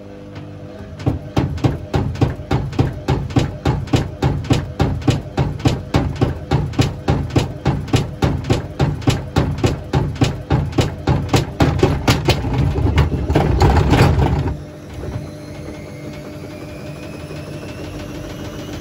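Hotpoint WMA64 front-loading washing machine tumbling a wash load in water. The drum's turning makes an even beat, about three strokes a second, that builds to a loud dense stretch and stops suddenly about fourteen seconds in. A quieter steady motor hum with a faint rising whine follows.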